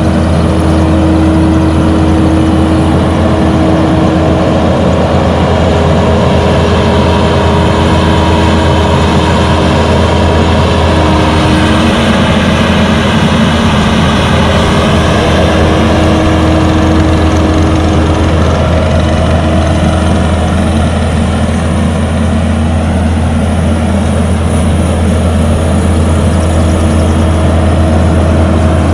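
Kubota skid steer's diesel engine running steadily at working speed while it drives a Harley rake, a constant deep hum with a few held tones above it that shift slightly in pitch.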